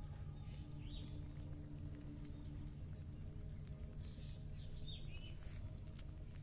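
Faint outdoor ambience: small birds chirping now and then over a steady low rumble, with scattered light clicks and a thin steady high tone.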